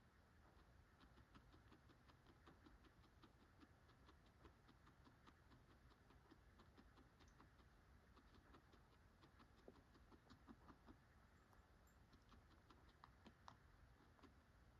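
Guinea pig chewing pellets: faint, quick crunching clicks, a few a second.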